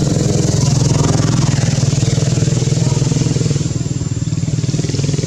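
A small engine running steadily, with a fast, even firing pulse.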